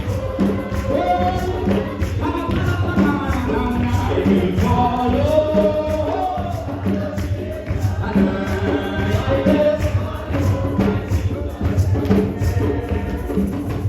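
Gospel music: a group of voices singing together over instrumental backing with a steady percussive beat, tambourine-like.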